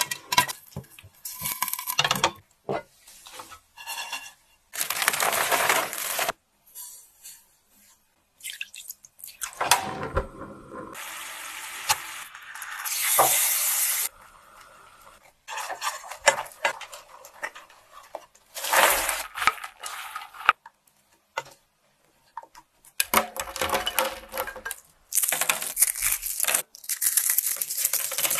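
A run of short cooking sounds: corn kernels popping and rattling in a pan, a spatula scraping and stirring a bubbling, sizzling butter-and-sugar mixture, and caramel-coated popcorn rustling as gloved hands toss it.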